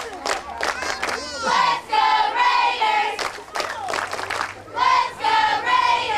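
High school cheerleaders chanting a cheer in unison, one shouted line about every three seconds, with sharp hand claps between the lines.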